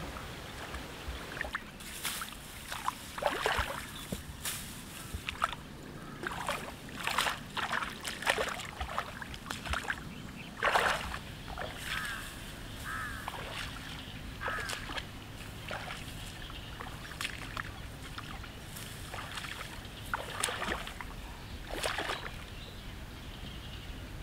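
Footsteps swishing through wet grass and sloshing in shallow muddy water, in irregular separate strokes and splashes.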